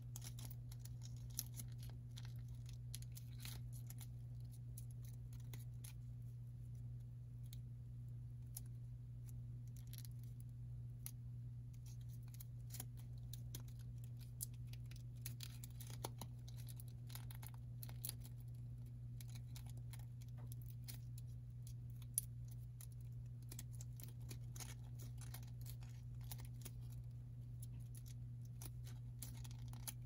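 Origami paper being folded by hand: soft crinkles and small clicks as the fingers crease and press small flaps, scattered irregularly throughout, over a steady low hum.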